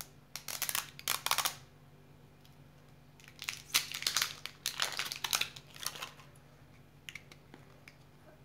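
Crinkling of a thin printed wrapper being torn and peeled off an egg-shaped plastic lollipop capsule, in two spells of rustling bursts, with a few faint clicks near the end.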